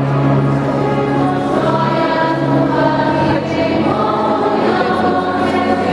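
Choir singing a hymn with long held notes, echoing in a church.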